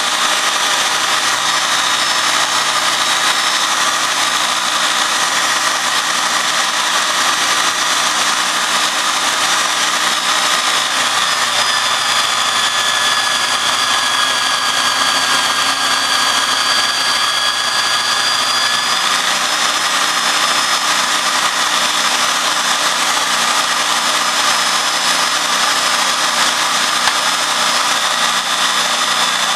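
Clamped electric drill running steadily, spinning a 5-inch disc against a butcher knife's edge to sharpen and polish it, with a steady whine. The pitch sags a little in the middle, then recovers.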